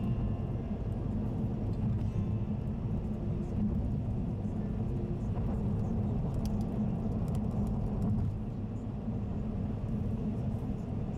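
Car driving at expressway speed: a steady low rumble of tyre and engine noise.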